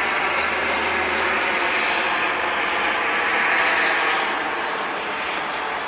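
ATR 72 turboprop airliner's twin engines and propellers running as it rolls out along the runway after landing: a steady rushing engine noise that swells a little about three and a half seconds in.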